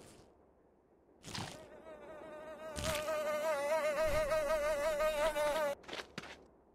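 A cartoon sound effect: a buzzing, insect-like whine with a wavering pitch, held for about four seconds before it cuts off suddenly. A brief rustle comes before it, a click sounds near the middle, and two short taps follow the cutoff.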